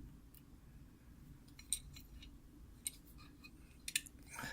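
Faint metallic clicks and scrapes of a lock pick and tension wrench working in the keyway of a round-body military padlock, a few separate clicks over a low hum.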